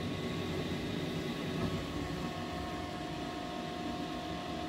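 Awenta bathroom extractor fan running after being switched on, very loud: a steady whine over an even rush of noise.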